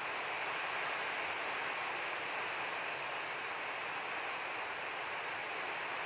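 Steady, even hiss with no distinct sounds standing out from it.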